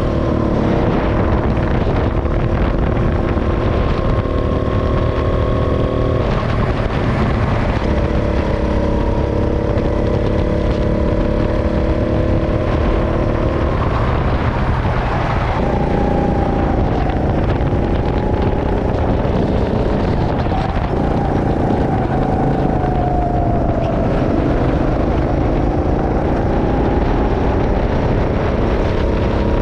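Kart engine running hard on track, its pitch dropping and climbing again several times as the kart lifts off and accelerates through the turns: a shift about six seconds in, a break near the middle, then a long slow swing in pitch. A steady low rush of wind and road noise runs beneath it.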